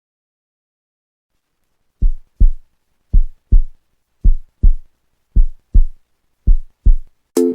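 Silence, then a heartbeat-style beat of five double low thumps, about one pair a second, opening a background electronic music track. The full music with synth chords comes in near the end.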